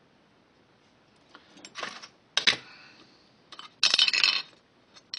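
Small metal hand tools clinking and clattering as they are set down on a workbench: a soft scrape, then one sharp clink about halfway through, and a short rattle of metal near the end.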